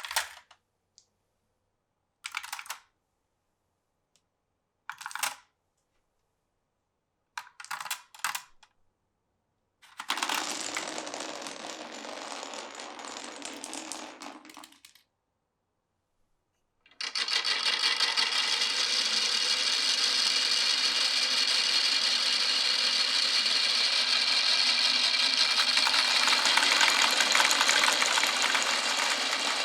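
Glass marbles on a wooden marble run: single clacks a couple of seconds apart, then a marble rolling along the track for about five seconds. From about halfway a louder, continuous rattling roll of marbles along the wooden track.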